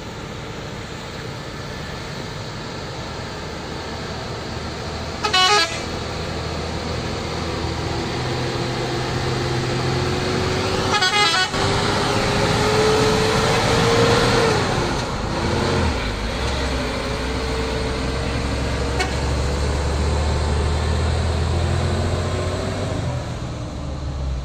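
Hino tanker truck's diesel engine pulling past, a whine over a low rumble that rises and then drops about fifteen seconds in. Two short horn blasts sound, about five and eleven seconds in.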